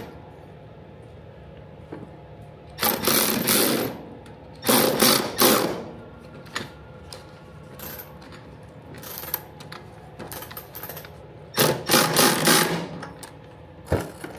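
Power tool running in several short bursts of about a second each, tightening a 10 mm bolt on a running-board bracket.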